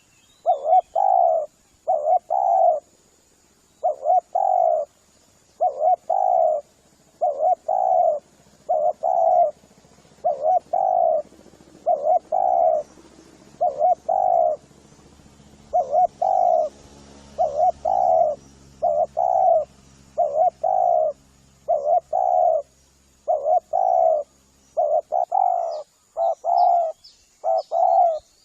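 Spotted dove (tekukur) cooing over and over in short groups of two to four coos, played as a lure call to draw in wild doves. Faint high chirps of small birds come in near the end.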